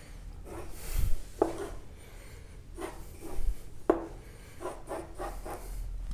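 Faint rubbing and scraping with a few light knocks.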